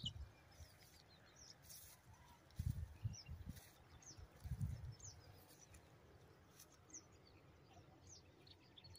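Faint outdoor ambience of small birds giving scattered short chirps over a field. Twice, around the first third and the middle, there are brief low thumps.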